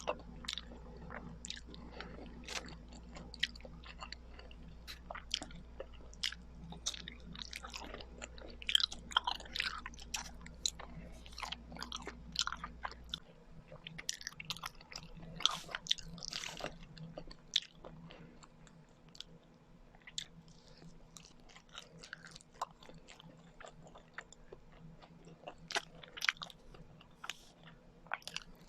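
Close-miked chewing of kakanin, Filipino rice cakes: irregular wet mouth clicks and smacks with occasional bites.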